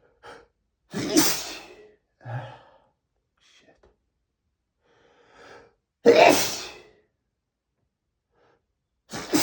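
A man sneezing loudly twice in a sneezing fit, about five seconds apart, with a short gasp and faint breaths between them; a third sneeze begins right at the end.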